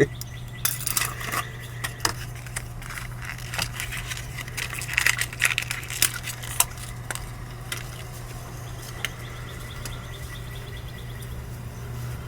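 Irregular metal clicks, clinks and scrapes of cheap hand tools being worked at an oil drain plug under a car, over a steady low hum.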